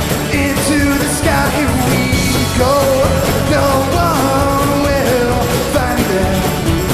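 Live Americana/punk band playing a rock-and-roll song: a steady drum and bass beat under a melody line that bends and slides.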